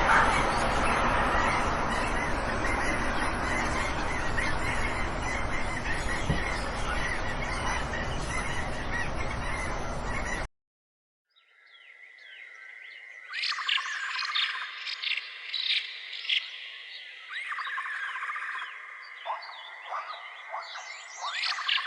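A dense flock of birds calling over a steady noisy background, cutting off suddenly about halfway through. After a short silence, small birds chirp in quick sharp notes over a steady high insect-like drone.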